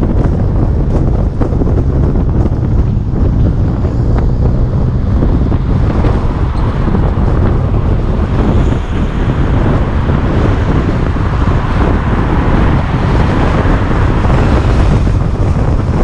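Wind buffeting the microphone of a camera on a moving car, over a steady low rumble of road and engine noise. The rushing gets brighter about six seconds in.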